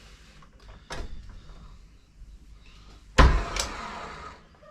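Evolution metal-cutting chop saw's motor blipping briefly off its sensitive trigger: it starts suddenly about three seconds in and winds down over a second or so. A knock sounds about a second in.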